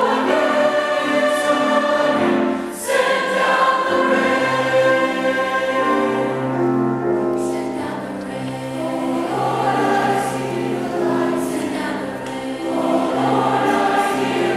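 High school mixed choir singing in parts, with low men's voices under the upper voices, holding notes and moving from chord to chord.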